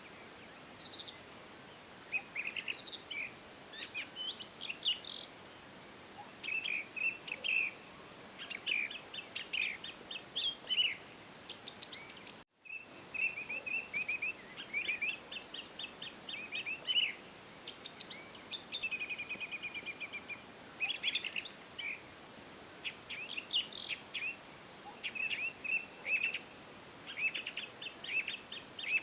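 Birdsong from several small songbirds, a steady string of short chirps and trills over faint background hiss, with a brief gap of silence about twelve seconds in.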